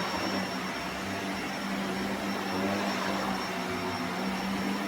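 Upright vacuum cleaner running steadily in carpet mode while being pushed over carpet: an even rushing of air with a steady low hum and a thin high whine.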